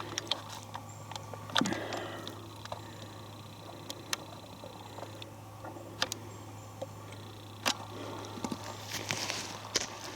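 Footsteps crunching through dry forest leaves, an uneven run of crackles and snaps that is louder about two seconds in and again near the end.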